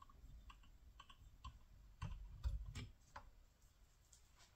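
Faint clicks and light knocks from parts being handled on a GM LS intake manifold on a workbench, with a few louder knocks about two to three seconds in, then near silence at the end.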